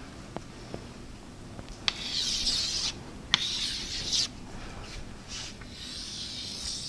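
Marker writing on a whiteboard: several short scratchy strokes, two of them starting with a sharp tap, about two seconds in and again at about three, five and six seconds.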